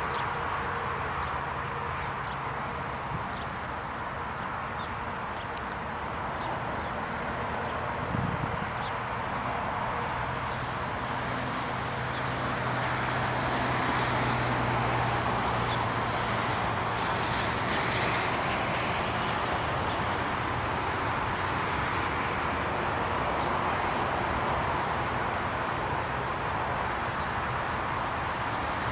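Metro Trains Melbourne electric suburban train approaching along the line, a steady running rumble that grows louder as it nears. A few short high bird chirps sound now and then over it.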